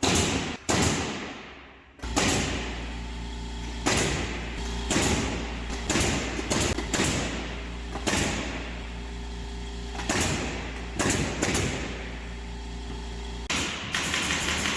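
Partition installation work: two loud knocks, then a machine starts a steady hum and sharp knocks and thuds land roughly once a second over it, until a louder rushing noise takes over near the end.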